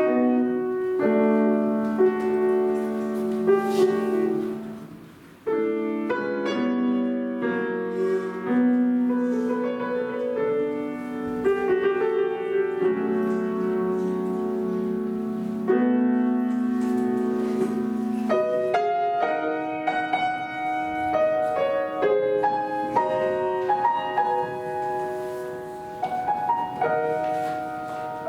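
Piano playing a classical-style piece, struck notes and chords ringing and decaying. About five seconds in, the sound fades briefly before the playing comes back in.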